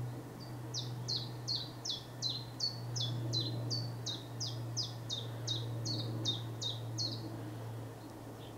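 Common chiffchaff singing its 'chiff-chaff' song: a run of about twenty short, high, down-slurred notes at about three a second, lasting some seven seconds. Underneath is the low, steady drone of a plane passing overhead.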